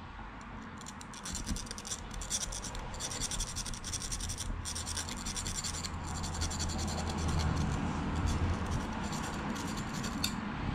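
Hand file scraping the end of a piston ring in quick repeated strokes, filing one end to open up the top ring's end gap. The strokes begin about a second in and stop just before the end.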